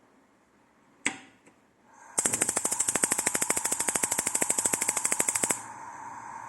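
Gas stove burner being lit: a knob clicks once, gas starts hissing, and the electric igniter ticks rapidly, about a dozen clicks a second, for some three seconds, then stops and the lit burner keeps up a steady hiss.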